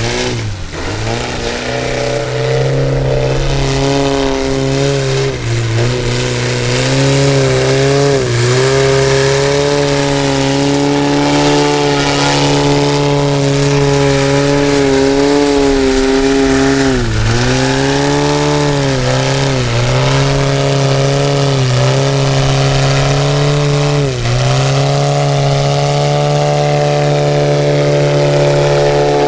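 The Valach 280 B4 four-cylinder boxer engine of a 50% scale Piper Clipped Wing RC model airplane running at high power through aerobatic flight. Its pitch dips and comes back up several times, most deeply around a third and four-fifths of the way through.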